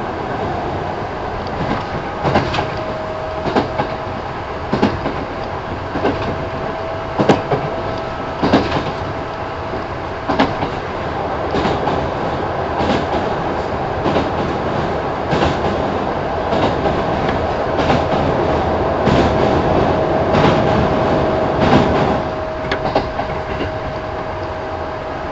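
Kintetsu 1000 series electric commuter train running between stations, heard on board: wheels clicking over rail joints about once every second and a bit, over a steady rumble. A thin steady tone runs for several seconds, fades out around the middle, and returns near the end.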